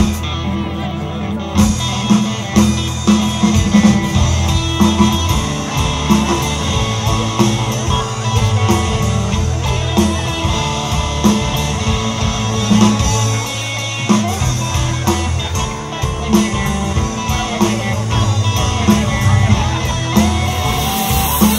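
Live rock band playing an instrumental passage: electric guitar and bass guitar over a drum kit with steady drum hits, and keyboards, with no singing.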